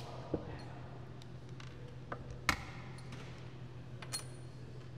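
Four scattered sharp clicks and light knocks of a cordless drill and small metal parts (screws and a valve cover) being set down and handled on a wooden workbench, the loudest about halfway through and the last with a brief metallic ping.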